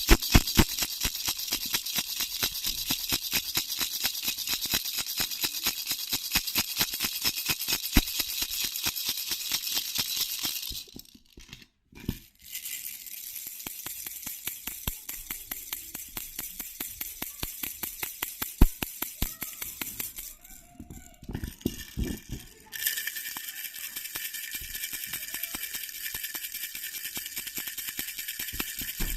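A baby's bell rattle (jhunjhuna) shaken fast and steadily, a rapid run of rattling clicks with a bright jingle of small bells. The shaking stops briefly twice, about a third of the way in and again past two-thirds, and the jingle is fainter between those two breaks.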